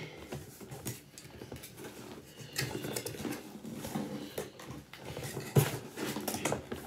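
Cardboard packaging and plastic parts being handled: scattered small clicks, taps and rustles, with a sharper knock about five and a half seconds in.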